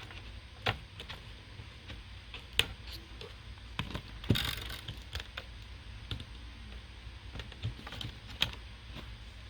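Scattered light clicks and taps of hard plastic laptop parts being handled, about half a dozen at uneven intervals, with a brief rustle near the middle.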